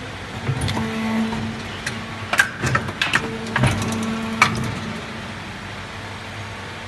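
SPM-130 injection moulding machine running a cap-moulding cycle. A steady mechanical hum comes in about half a second in, fades, and returns about three seconds in. Between about two and four and a half seconds a run of sharp clicks and knocks sounds as the mould opens.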